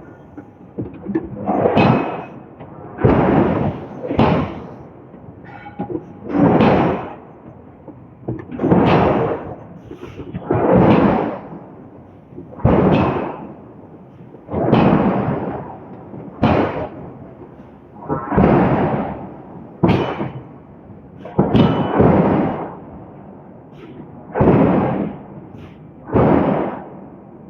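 Hydraulic forging hammer striking a steel billet again and again, a heavy blow about every one and a half to two seconds, each dying away with a short ring in a large space.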